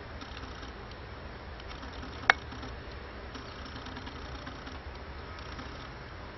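Steady outdoor background noise, a low rumble under an even hiss, broken by one sharp click a little over two seconds in.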